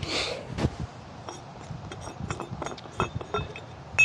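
Light metallic clinks and knocks as a CHA Porta Mast is worked down into its ground mount, a run of small ringing ticks ending in one sharp ringing clink near the end.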